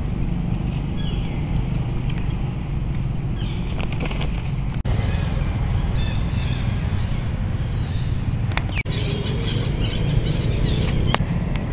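Outdoor ambience: a steady low rumble with scattered faint high chirps and small clicks, cut off briefly twice.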